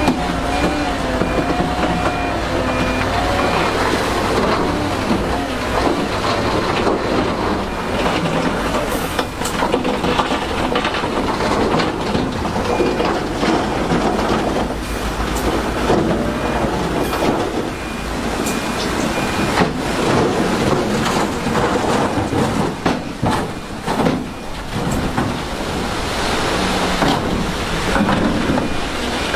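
Bulldozer and dump truck diesel engines working earth, their pitch rising and falling, over a continuous clatter. A reversing alarm beeps in a few stretches: near the start, in the middle and near the end.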